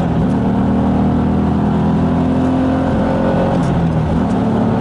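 BMW Z4 race car's engine heard from inside the cabin, driven hard on track, its pitch climbing just after the start and dipping and rising again near the end with the throttle and gears.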